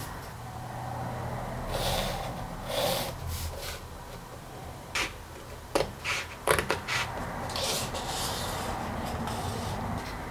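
Paper being handled and cut with scissors: scratching and rustling of paper, with a few sharp snips a little past halfway.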